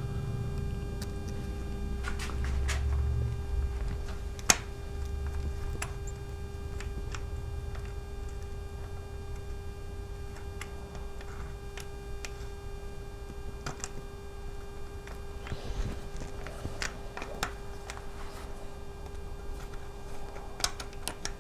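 Scattered light clicks and taps of small metal parts and hand tools being handled while fitting brake line fittings and washers, over a steady electrical hum.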